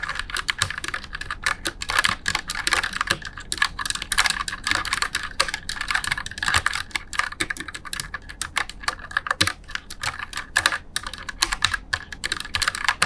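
Continuous fast typing on a Tsunami MKS-68 low-profile mechanical keyboard with red switches, a dense stream of keystroke clacks with a slightly sharp, high edge.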